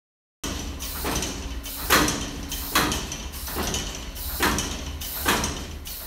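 Steam engine exhaust chuffing in a slow, even rhythm, a puff a little under once a second, over a steady low rumble.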